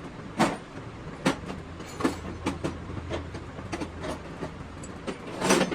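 About ten sharp, irregular knocks and clinks of hand tools on engine parts, the loudest just before the end, over a faint low hum.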